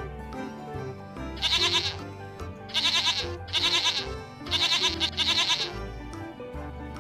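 Goat bleating five times in quick succession. Each bleat is a wavering cry about half a second long, heard over background music.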